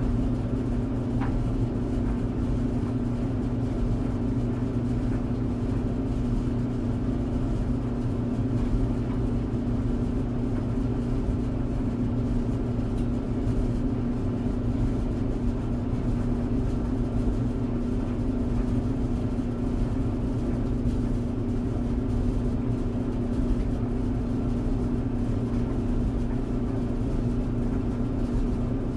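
Tumble clothes dryer running: a steady, even hum with a continuous whir that does not change.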